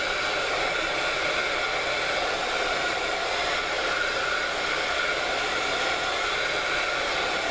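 Craft heat gun blowing steadily, a rush of air with a faint high whine, drying freshly applied paint on a mixed-media art page.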